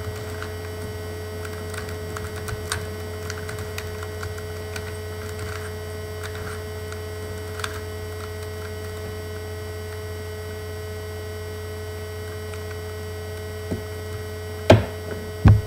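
A cast-resin dino cube puzzle being twisted by hand: scattered faint light clicks of its pieces turning over a steady electrical hum. Two loud knocks near the end.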